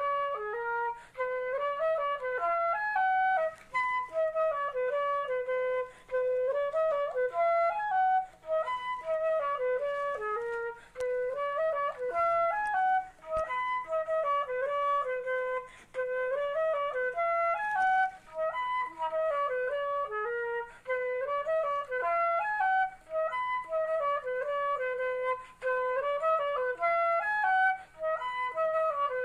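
Instrumental music: a single melody line moving in short stepwise phrases that repeat over and over.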